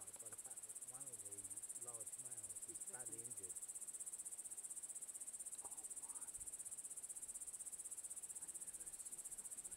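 A cricket-type insect trilling: a steady, high-pitched, rapidly pulsing buzz that cuts off suddenly at the end. Faint murmured voices can be heard under it in the first few seconds.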